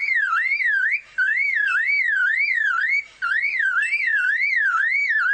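Superb lyrebird mimicking a car alarm: a loud whistle warbling up and down about three times a second, in three runs broken by short pauses about one and three seconds in.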